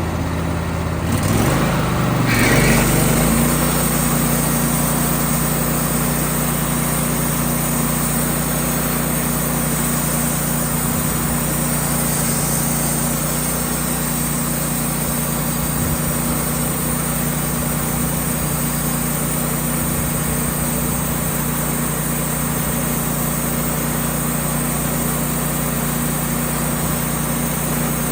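Sawmill's gas engine speeds up about a second in, then runs steadily at the higher speed.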